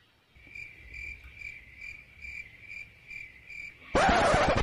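A cricket chirping, a high note repeated evenly about twice a second, over a low steady hum. About four seconds in, a short loud burst of breathy laughter covers it.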